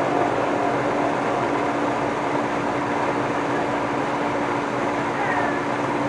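1955 Federal Model 2 electromechanical siren growling at low rotor speed. It gives a steady low tone over a rough mechanical rumble.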